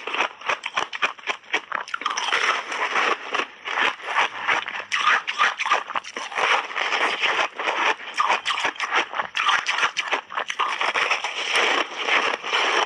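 A roll of crunchy ice coated in passionfruit pulp being bitten and chewed close to the microphone: a dense, continuous run of sharp crunches and crackles.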